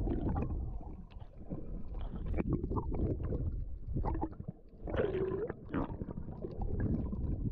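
Underwater water noise through a submerged camera: a low churning rumble with gurgles and small clicks as the diver swims, and a brief gurgle that dips and rises in pitch about five seconds in.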